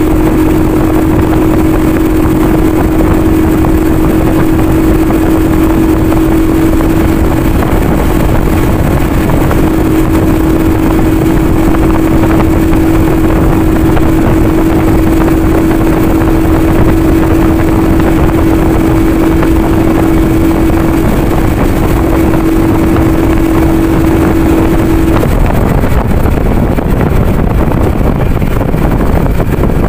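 Motorcycle riding at a steady speed: a loud rush of wind buffeting the microphone over the engine's steady note. The steady engine tone stops about 25 seconds in.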